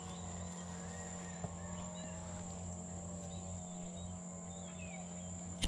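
Faint outdoor ambience: a steady high-pitched insect drone with a few short bird chirps over a low steady hum, and one small tick about a second and a half in.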